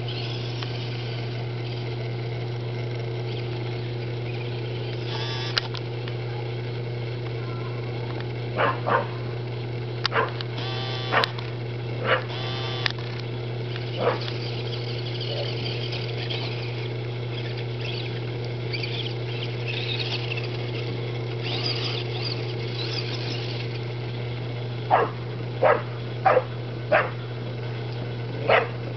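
English bulldog barking: short, sharp barks, several scattered through the middle and a quick run of about five near the end, over a steady low hum.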